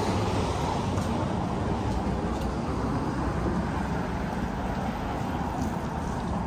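Steady rumble of vehicle engines and traffic.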